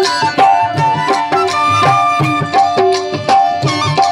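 Saraiki folk music: a flute plays a held, sliding melody over a steady dholak barrel-drum beat, with sharp clinking strokes from a jingling percussion stick.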